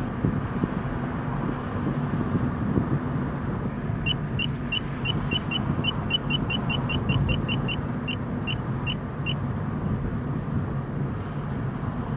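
Entry-level radar detector beeping a K-band alert set off by an automatic door opener: short high beeps begin about four seconds in, quicken into a rapid train, then slow and stop about five seconds later. Steady car engine and road noise underneath.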